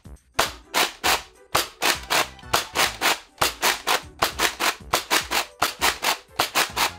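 Adventure Force Sportsman pump-action dart blaster being pumped and fired over and over in a steady rhythm of about three to four rasping strokes a second. Each stroke of the pump sets off the ratcheting clicks of the hopper's agitator, along with the pop of a dart firing.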